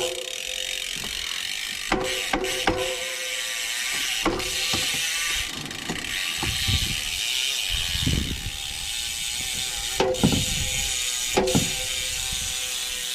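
Bicycle rear freehub ratchet ticking rapidly and continuously as the chain and wheel are turned, with a few sharp metallic knocks.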